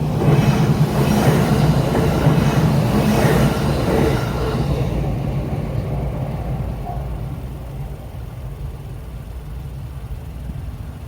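A JR Sagami Line train passing over the level crossing: a loud low rumble that is strongest for the first few seconds, then fades as the train draws away.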